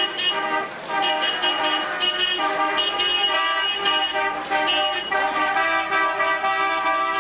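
Vehicle horns tooting in a quick series of short blasts over city street noise, then a long held horn note from about five seconds in.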